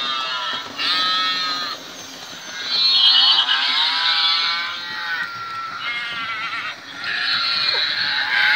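Recorded sheep and goat bleats from the sound units fitted in model railway wagons: about four wavering calls one after another with short gaps between them.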